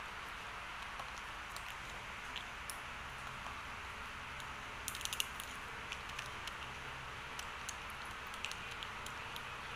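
Raw, dry instant noodles crunching as a baby monkey bites and breaks off pieces: scattered small crisp clicks, with a quick cluster about five seconds in, over a steady background hiss.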